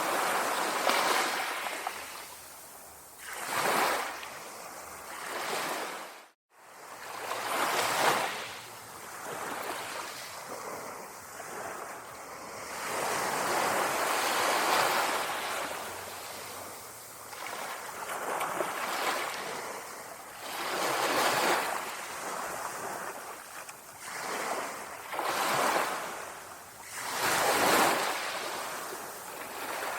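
Small sea waves lapping on a shore, each wave a swell of rushing water that rises and fades every two to four seconds. The sound cuts out for a split second about six seconds in.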